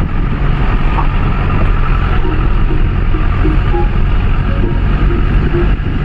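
Engine and road noise of a vehicle driving on a winding mountain road, heard from inside the cabin: a steady low drone.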